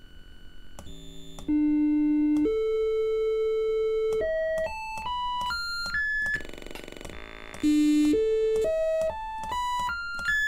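Amiga 1200 test tones from the DIAGROM audio test, one channel played through a speaker as its frequency is changed: steady triangle- and sine-wave tones that climb in steps every half second or so. A low buzz comes in the middle, then the tones climb in steps again.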